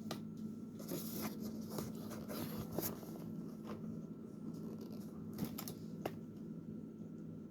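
Light handling noises: scattered small clicks and scrapes, over a steady low electrical hum.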